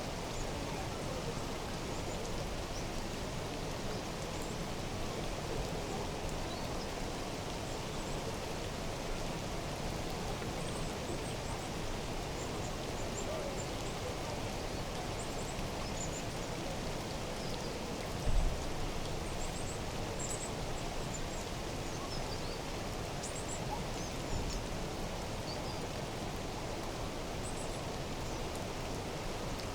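Outdoor nature ambience: a steady, even hiss of falling or running water, with faint, high bird chirps scattered through. A brief low thump comes about eighteen seconds in.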